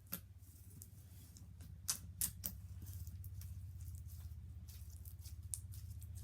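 Foam beads being pressed and mixed into slime, giving scattered sharp crackles and squishes, the loudest about two seconds in, over a steady low hum.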